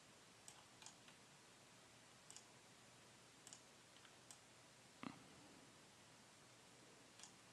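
Faint computer mouse clicks over near-silent room tone, a handful of short clicks spread irregularly, with one slightly louder click about five seconds in.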